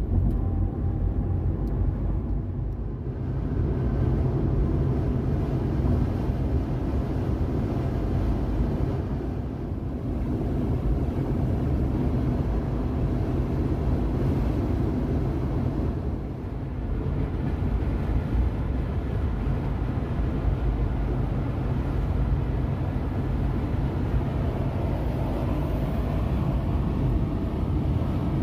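Steady low road rumble of a car travelling at highway speed, heard from inside the cabin: tyre and engine noise.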